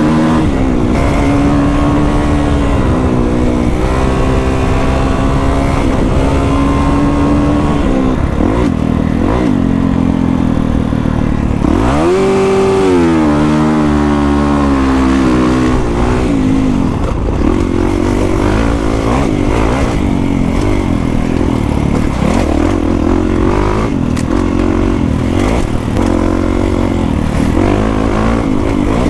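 A 2021 Kawasaki KX450X's single-cylinder four-stroke engine, breathing through an FMF 4.1 RCT exhaust, is ridden hard on a trail and heard from on the bike. The engine revs rise and fall continually with the throttle, climbing sharply about twelve seconds in and turning choppier with quick on-off throttle in the second half.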